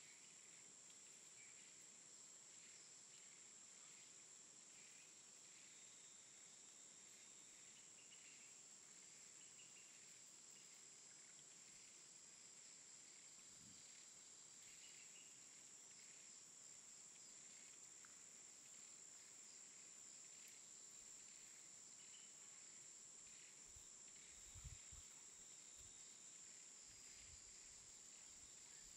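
Faint forest ambience: a steady, high-pitched insect drone, with a few soft low thumps near the end.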